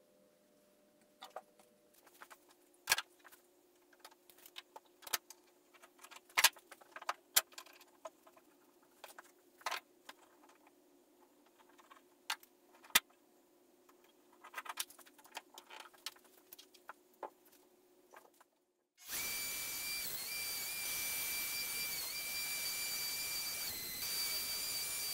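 Scattered clicks and knocks of clamps and a straightedge being set on a plywood panel. About three-quarters of the way in, a Skil router starts a steady high whine, its pitch dipping slightly a few times as it cuts a dado into the plywood.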